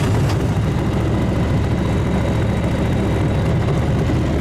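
Engine of a karakat (swamp all-terrain vehicle) running steadily just after being started, a loud low-pitched hum.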